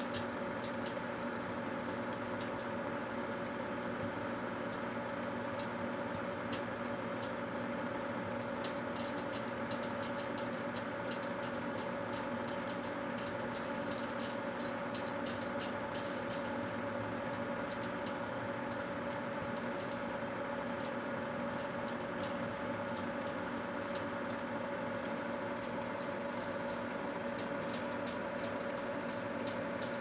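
A microwave oven running with a steady hum, with frequent sharp crackles and pops from a burning, sparking steel-wool pad and pencil inside it.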